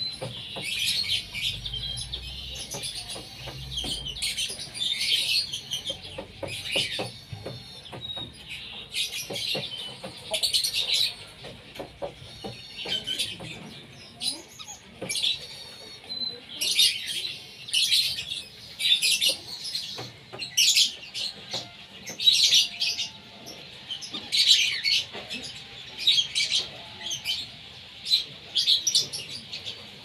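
Whistling ducks and their ducklings calling: a steady stream of short, high chirps and whistles in irregular bursts.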